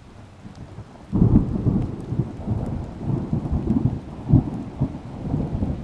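Steady rain, joined about a second in by a long rolling rumble of thunder that swells and fades several times.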